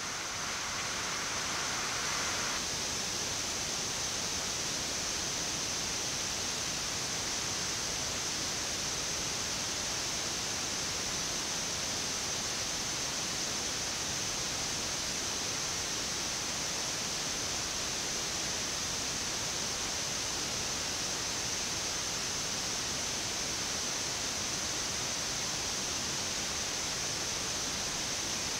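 Steady rushing noise of a Boeing 787 flight deck in cruise, with a thin high hiss on top and no change in level.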